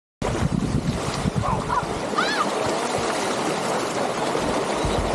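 Sea water rushing and splashing along the hull of a sailboat under way, with wind buffeting the microphone. Two short high-pitched cries come just before and around two seconds in.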